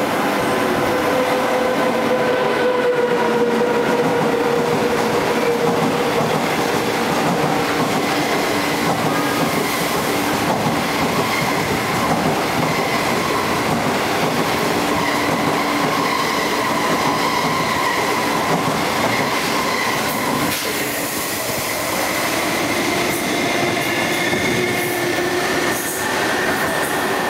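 A passenger train of 25T coaches hauled by an SS8 electric locomotive passes through the station without stopping. Its wheels run loud and steady over the rails, with thin steady tones above the rumble, until the last coach clears near the end.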